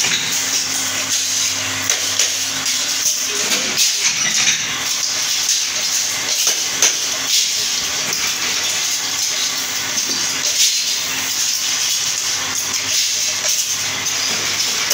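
Steady hiss of workshop machinery with a faint motor hum underneath, and frequent light clicks and taps of metal pieces being handled.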